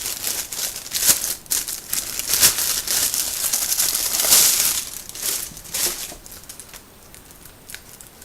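Plastic packaging crinkling and rustling as it is handled, loudest about four seconds in, then dying away over the last couple of seconds.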